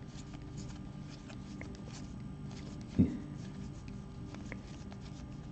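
Baseball trading cards being flipped through by hand: faint light clicks and rustles of card stock sliding over card stock, with one soft thump about three seconds in, over a low steady hum.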